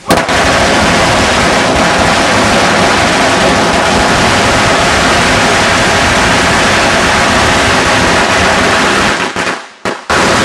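A long string of Chinese firecrackers going off: a sudden start, then a dense, continuous, very loud crackle of rapid bangs for about nine seconds. Near the end it falters, stops for a moment, and then gives one last short burst.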